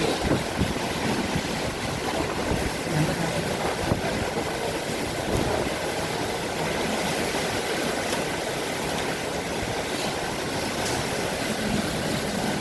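Heavy rain pouring in strong wind: a steady, dense rushing noise.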